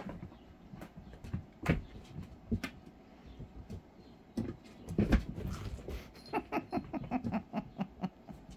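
Siberian kittens playing rough on a carpeted floor: irregular thumps, taps and scuffles as they pounce, tumble and knock into a pair of boots, with a quick run of light taps about two-thirds of the way in.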